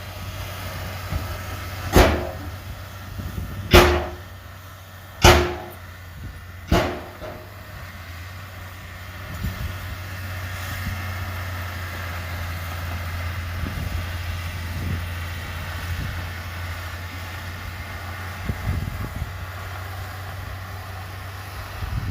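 Heavy earthmoving machinery's diesel engine running steadily with a low hum. In the first third come four sharp, loud bangs, about a second and a half apart.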